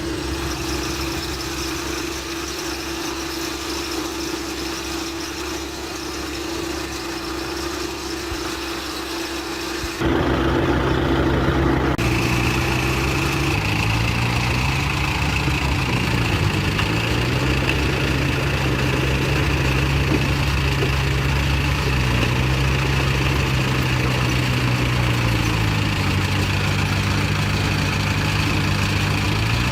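Bulldozer's diesel engine running. About ten seconds in the sound turns abruptly louder, and the engine's pitch then rises and falls again and again as the revs change, with a steady high whine over it.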